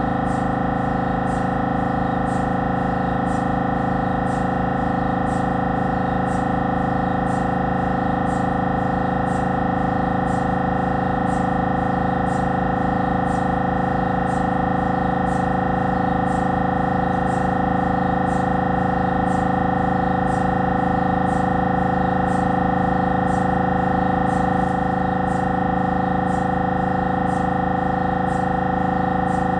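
Siemens Magnetom Avanto 1.5 T MRI scanner's gradient coils buzzing through an imaging sequence: a steady, pitched, many-toned drone with a faint tick repeating about twice a second.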